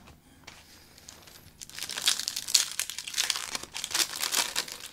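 A trading card pack wrapper being torn open and crinkled. It starts about a second and a half in and goes on as a dense crackling to the end.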